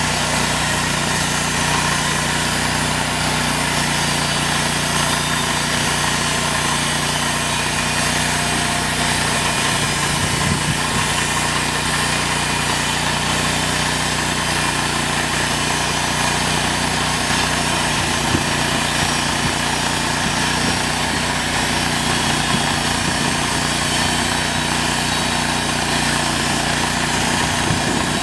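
Sawmill's engine running at a steady speed, an even hum that holds its pitch and level throughout.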